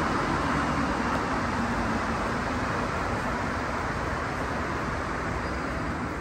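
Steady rushing rumble of a rubber-tyred Montreal metro train in the station below, slowly fading.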